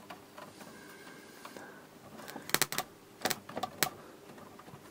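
Sharp clicks and crackles from a powered-up Korg Delta DL-50 synthesizer as its live circuit board and wiring are pressed and wiggled, the intermittent crackling of its faulty synth section. A faint steady tone sounds through the first half, then about six sharp clicks come in a quick cluster past the middle.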